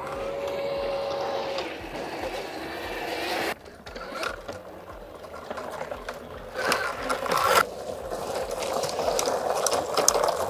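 Honda CRF-E2 electric mini dirt bike riding on dirt: the electric motor gives a steady whine in the first second or so, with tyre and dirt noise. The sound changes abruptly twice, about three and a half seconds in and again just past seven seconds, with a brief louder stretch just before the second change.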